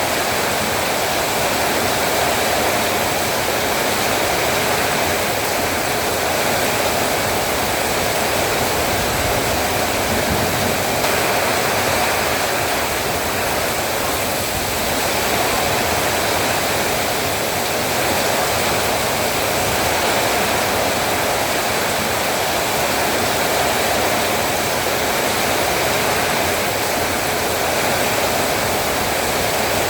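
Heavy rain falling steadily, a loud even downpour hiss with no breaks.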